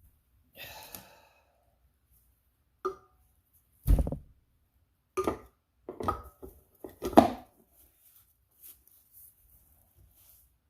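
A short rustle, then a series of separate knocks and clunks of hard parts being handled and set down during pump assembly. The loudest is a deep thump about four seconds in.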